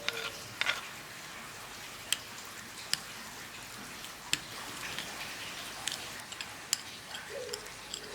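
Steady rain with a handful of sharp, scattered ticks, the clearest about two seconds in and near the end.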